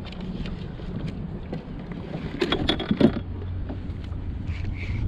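Steady low rumble of wind on the microphone aboard a kayak on open water, with a short burst of rattling clicks about two and a half seconds in.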